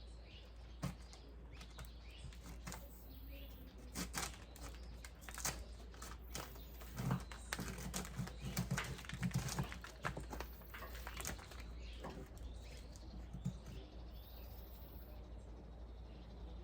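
Irregular sharp clicks and knocks, thickest in the middle stretch.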